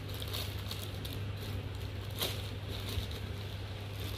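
Indoor room tone: a steady low hum under an even hiss, with a few faint clicks.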